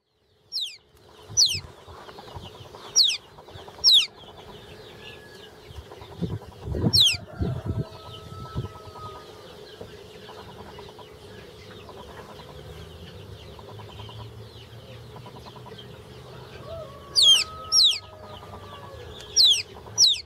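Three-week-old Altai Bantam chick peeping: loud, short, high calls that each drop sharply in pitch, in twos and threes during the first few seconds, once about seven seconds in, and again near the end. A few low thumps come about seven seconds in.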